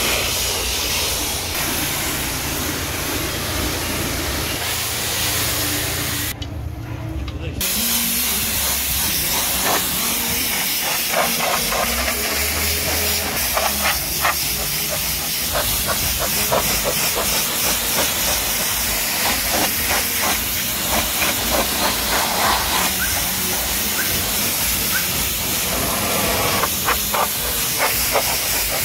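Pressure washer jet spraying water onto a car's bonnet: a steady hiss that cuts out for about a second some six seconds in, then carries on.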